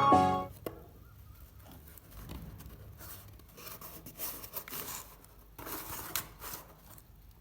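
Faint, irregular scraping and rustling handling noises, with a few sharp clicks, as cardboard craft materials are worked. Piano music ends in the first half second.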